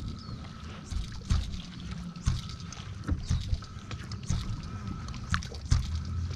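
Sounds aboard a bass boat on the water: a steady low rumble with scattered knocks and clicks and some water slapping.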